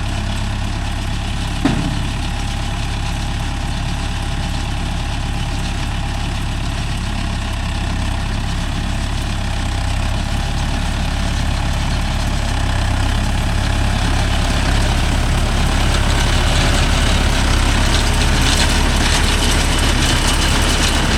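Mahindra Yuvo Tech Plus 585 tractor engine running steadily, with a single sharp knock about two seconds in; the sound grows a little louder in the last few seconds.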